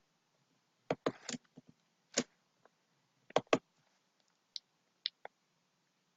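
Computer mouse and keyboard clicking: a handful of sharp clicks, some in quick pairs, with fainter high ticks later on.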